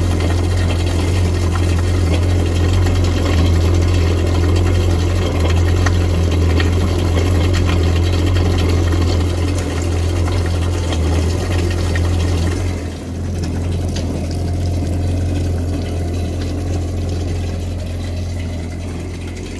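Yamaha SX190 jet boat engine idling steadily on a garden-hose cooling supply on its trailer, a constant low hum, with water splashing out of the jet pump outlet onto the pavement. The engine is being run to warm the oil before its first 10-hour oil change. The sound drops a little in level about two-thirds of the way through.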